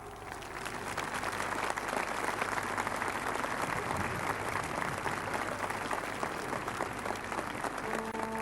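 Audience applauding, building over the first second or two and then holding steady. Near the end a band enters with a held brass chord.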